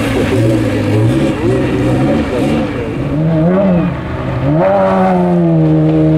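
Off-road race car engines revving up and down through corners. About four and a half seconds in, one engine revs up, then holds a steady note that slowly eases in pitch.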